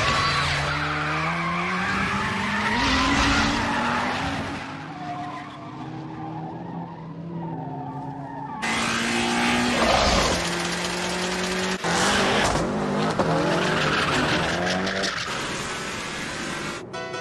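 Two racing cars, a Toyota AE86 and a Mitsubishi Lancer Evolution III, run hard on a twisty road: their engine notes rise and fall through gear changes, with several bursts of tyre squeal as they take the corners.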